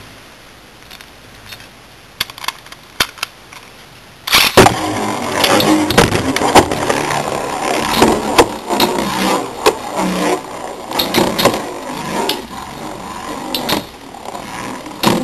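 A few light plastic clicks, then Beyblade spinning tops ripped off a string launcher about four seconds in. After that they spin and collide in a plastic stadium: a continuous whirring rattle broken by many sharp knocks.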